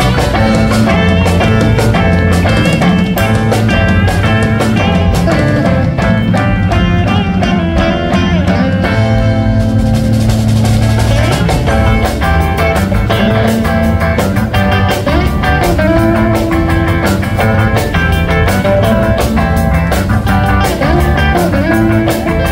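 Live rock band playing an instrumental number: two electric guitars, electric bass and a drum kit, amplified and steady with a driving beat.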